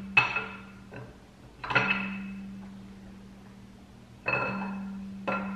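Steel camshaft being worked out of a 4.8 V8 engine block, clinking against metal: four sharp clinks, each leaving a lingering ring.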